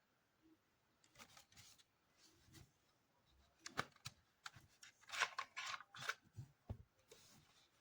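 Faint handling noises: scattered clicks and rustling, sparse at first and busiest in the second half.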